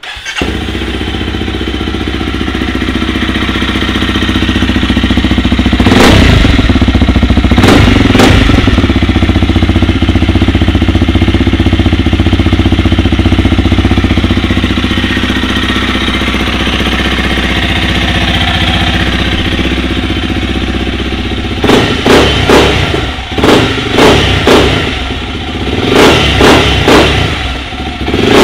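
Honda CRF300L's single-cylinder four-stroke engine through a full FMF exhaust system, starting and settling into a steady idle. Two brief throttle blips come a couple of seconds apart, then a run of quick revs near the end.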